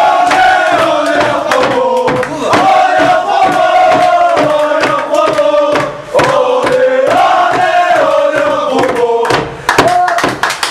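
A crowd of men chanting a song together in unison, with hand-clapping in time. Near the end the chant breaks up into shouts and scattered claps.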